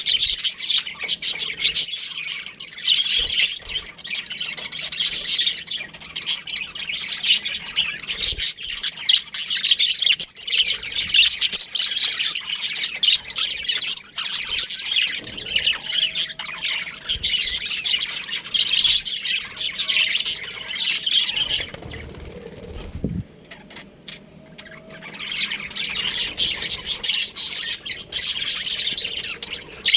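A flock of budgerigars chirping and chattering continuously, many birds calling over one another in high squawks and warbles; the chatter thins briefly about three quarters of the way through, then picks up again.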